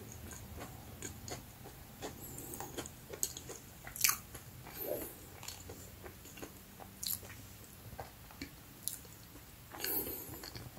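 Someone chewing a chocolate-coated crispy bread biscuit close to the microphone, with irregular sharp crunches; the loudest crunch comes about four seconds in.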